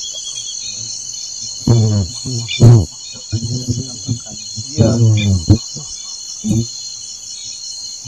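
Steady, high-pitched chorus of forest insects trilling together without a break, with several callers overlapping.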